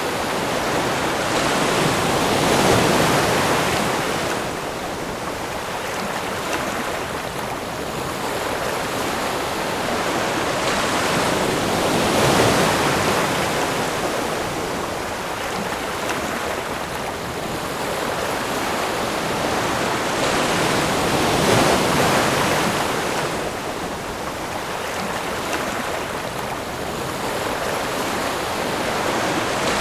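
Ocean surf: waves washing in and drawing back in a continuous hiss, with a swell cresting about every nine to ten seconds, three times.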